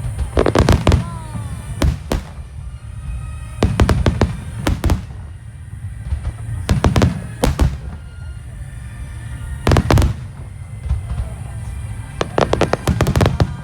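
Large aerial fireworks bursting in quick clusters of booms about every two to three seconds, with crackling in between, over music playing from loudspeakers.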